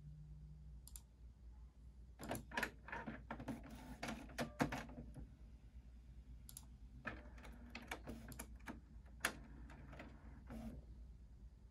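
Canon PIXMA MG6220 inkjet printer's internal mechanism clicking and clacking in two spells, the first about two seconds in and the second from about seven seconds, with a faint motor hum under the second spell.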